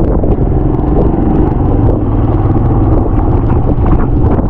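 Road vehicle on the move: a loud, steady low rumble of engine, road and wind noise.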